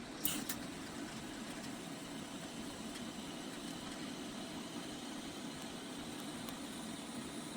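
TIG welding arc running: a steady buzzing hiss, with a sharp crackle and a smaller click about a third of a second in.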